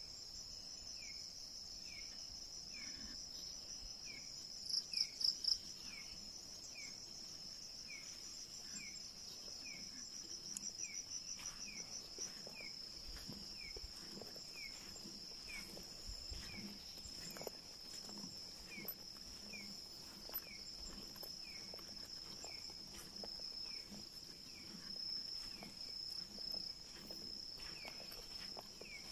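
Night insect chorus of crickets in forest: a steady high trill, with a short falling chirp repeating about once a second. About five seconds in, four louder pulsed calls stand out, and a quicker pulsed run follows a few seconds later.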